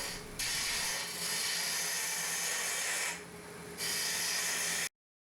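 A turning tool cutting a spinning piece of scrap eucalyptus on a wood lathe, shaving the wood with a steady high hiss. The hiss eases off briefly twice and stops abruptly near the end.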